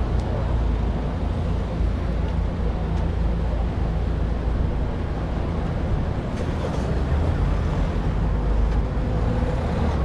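City street traffic: a steady low engine rumble with road noise from motor vehicles.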